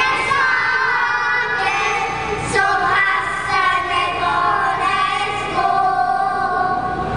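Children's choir singing a song together into stage microphones, held notes changing every second or so.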